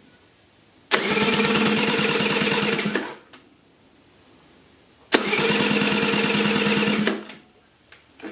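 Honda Spree 50cc two-stroke scooter engine, with a compression gauge fitted in place of the spark plug, spun over by its electric starter in two bursts of about two seconds each. Each burst has a rapid, even beat. The cranking is a compression test that reads only about 30 psi: low compression.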